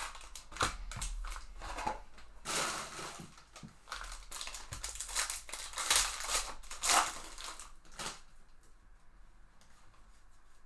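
Foil card-pack wrapper crinkling and crackling in quick bursts as it is torn open by hand. It stops about eight seconds in, leaving only faint handling of the cards.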